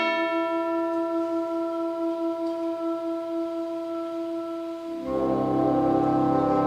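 Wind orchestra playing a held, slightly pulsing chord that opens with a bright struck note. About five seconds in, the full band comes in louder, with lower instruments.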